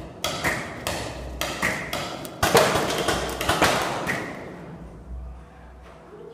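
Gunshots echoing in an indoor shooting range: a run of sharp reports, several a second at times, through the first four seconds, each with a short ring off the walls, then a few fainter shots.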